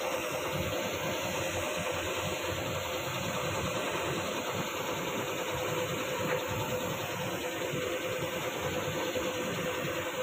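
Air compressor motor running steadily to supply a paint spray gun, a constant mechanical drone with a rapid low flutter and a faint steady hum.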